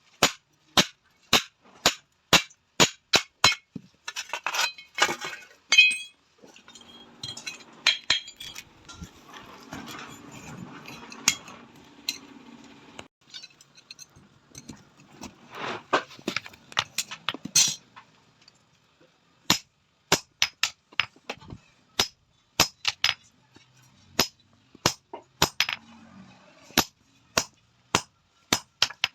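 Hand hammer striking an iron sheet on an anvil while a tawa is forged, in sharp ringing blows about two a second. The hammering stops for several seconds in the middle, where a rougher steady noise runs instead, and then starts again.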